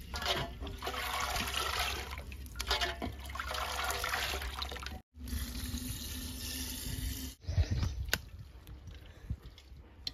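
Chicken-boiling broth being ladled from a steel vessel and poured from a steel bowl into clay pots, splashing and gurgling. The second pour carries a steady low tone as the pot fills. It ends with a few dull thumps and a click.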